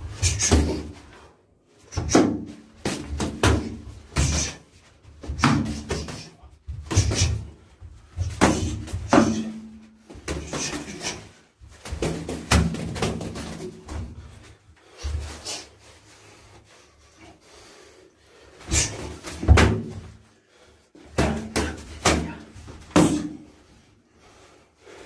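Boxing gloves landing on gloves, arms and bodies during sparring, with thuds of feet on the floor: irregular flurries of punches, echoing in a small bare room, with a lull of a few seconds past the middle.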